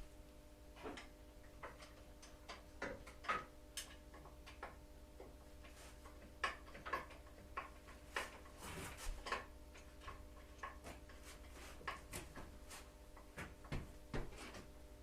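Scattered clicks and light metallic knocks of hand tools and loose parts being handled while an MZ TS 250/1 motorcycle is dismantled, coming at uneven intervals, a few louder ones around the middle.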